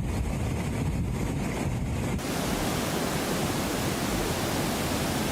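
Steady rushing noise with a low rumble underneath; about two seconds in it changes to an even, smooth hiss.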